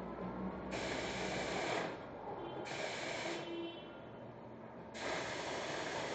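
Compressed air hissing in sharp on-off bursts from pneumatic equipment on a factory assembly line, over steady factory background noise. There are three bursts of about a second each, and the third is still going at the end.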